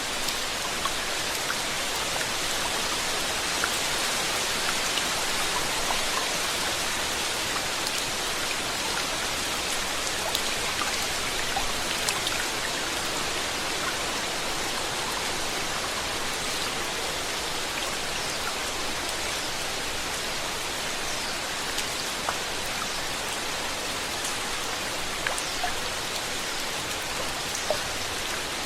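Steady rain falling, an even hiss with scattered drops tapping on a surface.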